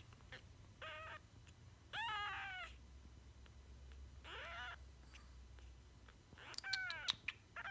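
A week-old kitten mewing while being syringe-fed milk: about five short, high-pitched mews, several falling in pitch, the loudest about two seconds in, with a few sharp clicks near the end.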